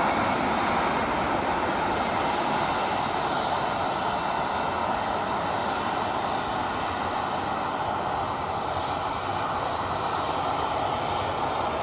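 Jet engines of an arriving Boeing 737-800: a steady rushing roar that eases slightly toward the end.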